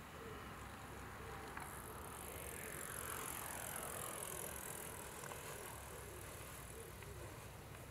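A vehicle passing by: its sound swells about a second and a half in, peaks around three to four seconds in with a hiss and a falling pitch, then fades away.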